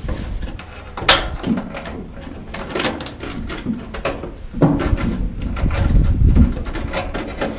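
Metal clinks, scrapes and knocks of hand work on a J-hook and the diamond-plate toolbox at the truck's bed rail, with a sharp click about a second in. Heavier low thuds and rumble come in the second half, as the truck body is bumped close by.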